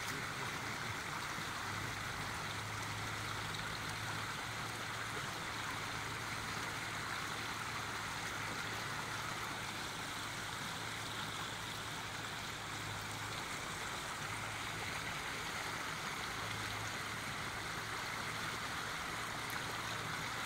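Muddy field water pouring steadily over a bamboo-slat mat fish trap, a continuous rushing trickle.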